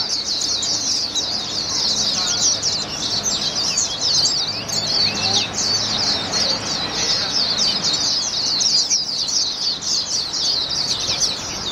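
Several caged Swinhoe's white-eyes (Taiwanese white-eyes) singing at once: a continuous, high twittering made of rapid, overlapping, mostly falling notes.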